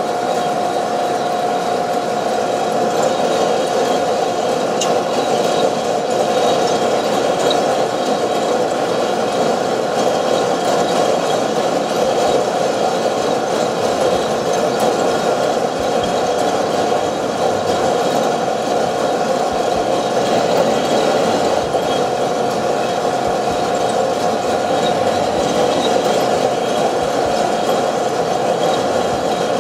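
Probat two-barrel sample roaster running: its drums turning with coffee beans tumbling inside, a steady whir with a constant mid-pitched tone. The roast is in its drying stage, with the beans just starting to change colour, before first crack.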